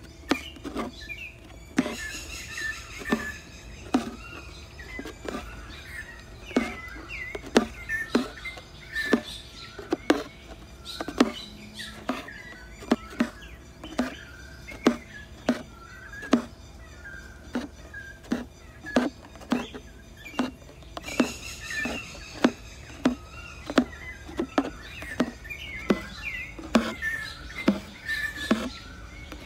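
A needle popping through thin canvas pulled taut in an embroidery hoop, with thread drawn through after it: a string of sharp ticks, a little over one a second, as the stitches go in one after another.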